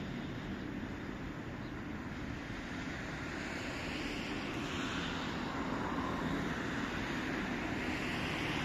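Outdoor traffic noise, with the rushing sound of a passing vehicle growing louder from about halfway through.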